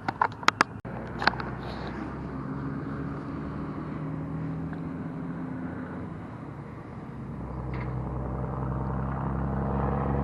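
A few sharp clicks and knocks, then a boat motor running with a steady hum that grows louder in the second half.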